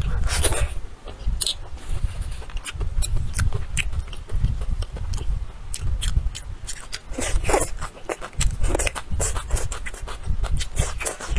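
Close-miked eating sounds: wet chewing and lip smacking, with quick irregular clicks throughout.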